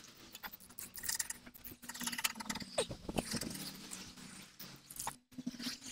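Aerosol spray-paint can hissing in short, irregular bursts, with small clicks and rattles in between.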